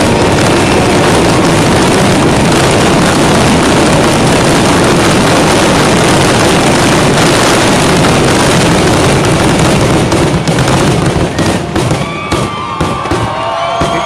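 Fireworks finale: a loud, dense, continuous barrage of bangs and crackle that thins into separate bangs about ten seconds in, as the crowd starts to cheer and whistle near the end.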